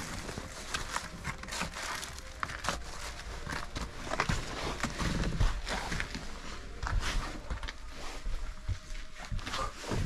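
Footsteps scuffing and crunching over debris and litter, with scattered knocks and thumps as people step through a cluttered doorway into a small room.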